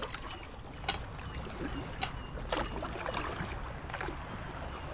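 Kayak paddle strokes splashing and dripping on calm canal water, a few sharp splashes spread through the stretch, over a low steady rumble. A faint short high chirp repeats about twice a second.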